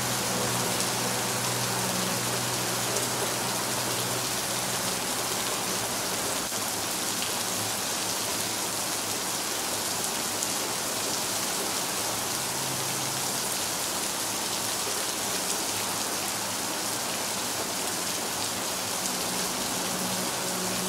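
Steady, heavy rain falling on a surface, an even hiss of countless drops. A few low held tones sit faintly underneath, thinning out in the middle and coming back near the end.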